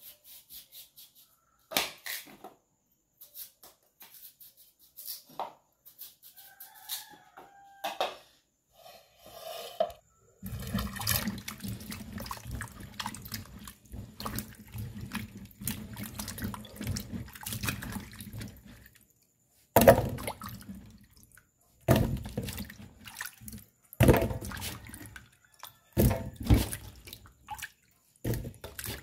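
A knife clicks through raw yam for the first several seconds. Then water splashes and sloshes in a bowl in a stainless-steel sink as hands wash the yam cubes, followed by separate splashes and knocks as the wet pieces are moved into an aluminium pot.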